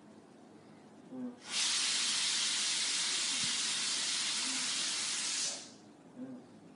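A child hissing like a snake, one long steady "sss" breathed out for about four seconds during the cobra pose, starting and stopping sharply.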